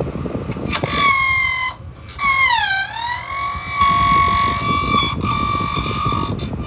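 Fan blades striking a small pen pushed into the fan, making a loud, pitched, dubstep-like buzz. The pitch dips and swings back up about two to three seconds in, and the buzz breaks off briefly a few times.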